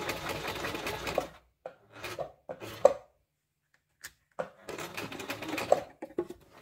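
Privileg Nova sewing machine stitching a buttonhole in stops and starts: a run that stops about a second in, a few short spurts, then another run of about a second and a half. It is going over the buttonhole a second time to make the stitches denser.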